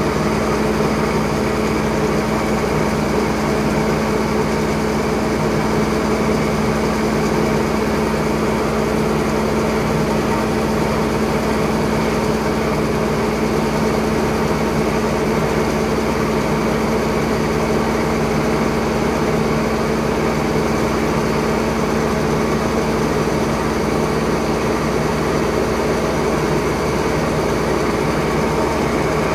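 Steady mechanical drone of the machinery augering wheat out of a hopper-bottom grain trailer: an even, unchanging hum with a fixed pitch.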